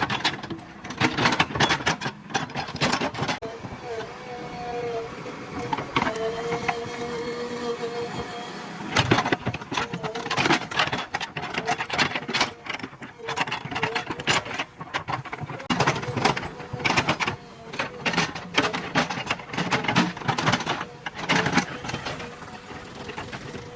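JCB 3DX backhoe loader digging: irregular clattering and scraping of the bucket and soil over the running machine, with a wavering whine throughout.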